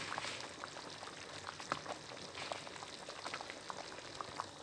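Pot of banga (palm-nut) soup boiling, bubbling steadily with many small scattered pops.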